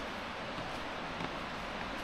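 Steady outdoor background noise, a continuous hiss with a faint tick just past a second in.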